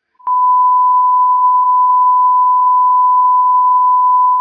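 A loud, steady electronic beep at about 1 kHz: one unbroken pure tone with a click at its onset, holding the same pitch throughout.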